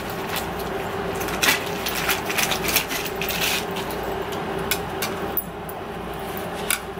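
Sunglasses being handled and slotted into a felt wall organizer: scattered light clicks and rustles over a steady hum.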